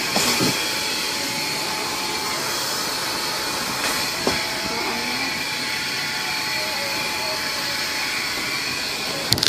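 Automatic car wash dryer blowers running, a steady rush of air.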